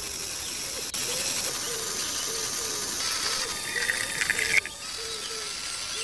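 Small motor-driven miniature sugarcane juice crusher running, its rollers and gears making a steady whirring that pulses about twice a second. A brief crackling for about a second near the middle.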